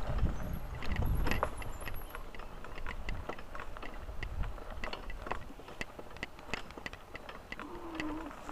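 Bicycle rattling and clicking at irregular intervals while ridden over a rough track, with wind rumbling on the microphone during the first two seconds.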